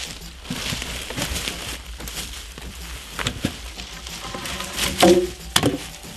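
Logs and poles being handled on dry forest-floor litter: rustling and crunching of leaves and twigs underfoot, then two sharp wooden knocks about five seconds in, wood striking wood.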